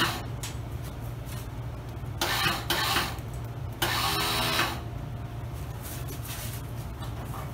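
Electric starter on a 1990 Murray lawn tractor engine cranking in three short whirring, grinding bursts about two to five seconds in, the last about a second long, without the engine catching. The owner suspects the starter ring has broken off.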